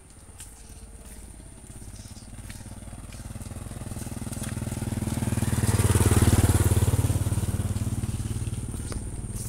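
A small motorcycle's engine coming closer, passing close about six seconds in, then fading away.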